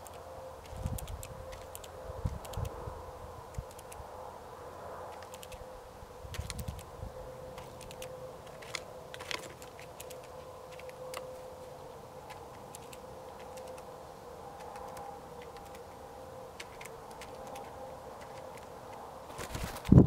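Scattered light clicks and taps of a blue jay pecking seed and shifting on a hanging seed feeder's wooden tray, with a few soft thumps and a faint steady hum underneath. Near the end a single loud thump as the feeder is jolted and left swinging.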